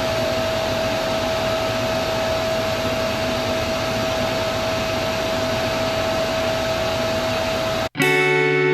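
Compressed-air spray gun, a SATAjet 100 B RP, hissing steadily as it sprays 2K high-build primer, with one steady tone above the hiss; it cuts off suddenly near the end.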